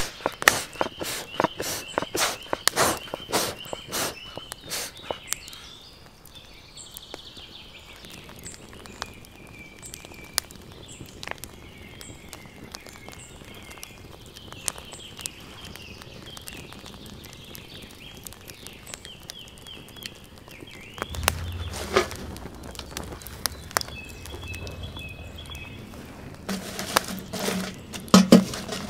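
Wood fire crackling on a fire-pit plate, with many sharp cracks in the first few seconds and only scattered ones after, while birds chirp faintly. A low rumble comes in for a few seconds past the middle, and near the end there are knocks as split logs are set onto the fire.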